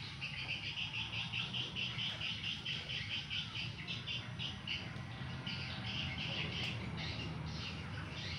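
A small animal chirping in a fast, even series, about four high chirps a second, over a low steady rumble.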